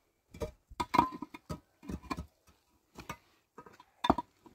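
Rocks knocking together and clacking against hollow concrete blocks as they are picked from a pile and set into the blocks' cores: a string of sharp, irregular knocks with short quiet gaps between them.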